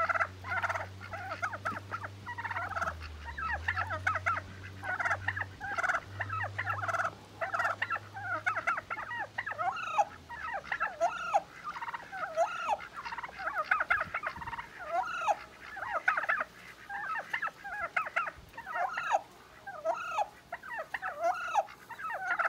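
Bronze turkey hen calling agitatedly: a rapid, unbroken run of short, harsh calls, several a second, the sign of a hen upset with a tom and scolding him. A low steady hum runs under the first half.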